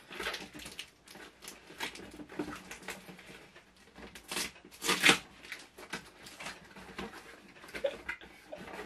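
Cardboard shipping box being opened by hand: packing tape picked at and peeled, and cardboard flaps rustled and scraped. The loudest sounds are two short rips about five seconds in.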